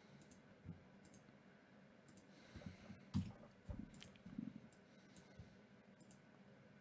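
Faint computer mouse clicks, a few scattered sharp ticks, with a cluster of soft low knocks on the desk about halfway through.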